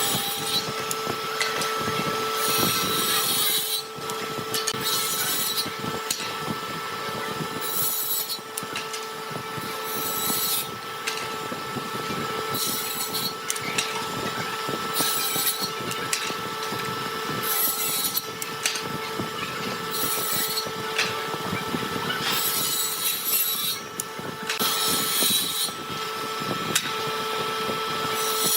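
A power tool working wood: a steady motor tone under a rough rasping noise, with a harsher rasp returning about every two and a half seconds as the tool is pushed along the workpiece.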